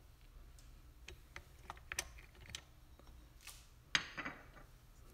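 A silicone spatula scraping and tapping against a stainless steel mixer bowl as bread dough is worked: a scattered run of light clicks and taps, with one sharper knock about four seconds in.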